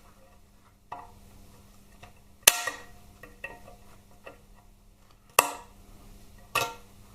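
Circlip pliers working a circlip in a Harley-Davidson Twin Cam inner primary case: four sharp metal clicks, the loudest about two and a half and five and a half seconds in, with fainter small ticks and clinks between.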